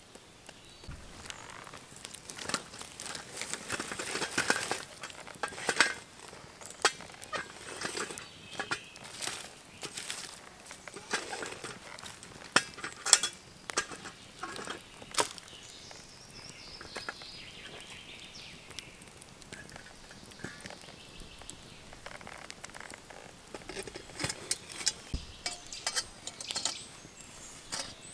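Campfire cooking handling: a wooden stick scraping and poking through ash and embers, then repeated sharp knocks and clinks as a stick works the lid of a metal camp pot and utensils touch the pot.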